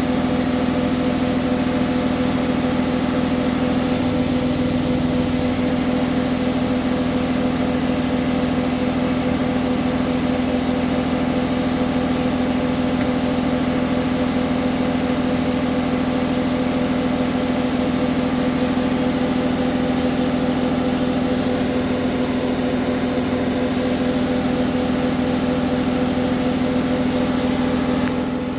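Hoover front-loading washing machine in its final spin at 1400 rpm: the drum and motor run at steady top speed, giving a constant loud hum with an unchanging pitch.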